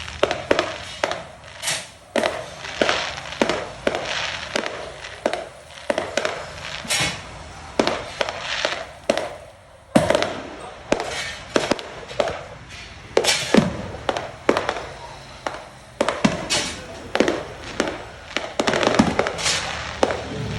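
Fireworks going off in quick succession: a run of sharp bangs, one or two a second and sometimes overlapping, each trailing off in a short crackle or echo.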